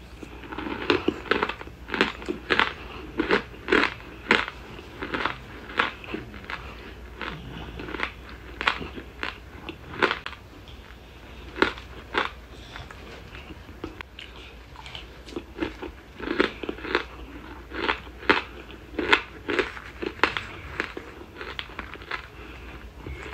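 Close-miked chewing of compressed cornstarch chunks: crisp, crackly crunches about two a second. They pause briefly a little past halfway, then resume.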